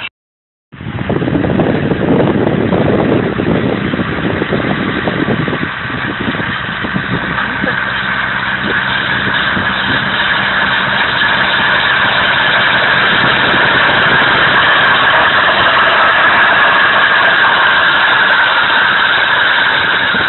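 Fiat 70-66 DT tractor's four-cylinder diesel running steadily under load while pulling a land roller across a seeded field. The sound cuts out for a moment just after the start, then the engine runs on, getting a little louder toward the end.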